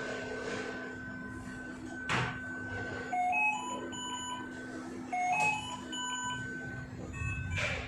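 Philips V200 ventilator alarm: a short run of beeps stepping up in pitch, sounded twice about two seconds apart, over a steady machine hum. Brief rushes of air-like noise come about two seconds in and near the end.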